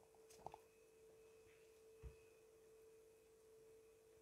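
Near silence with a faint, steady, single-pitched hum. There are a couple of soft clicks about half a second in and a low soft knock about two seconds in.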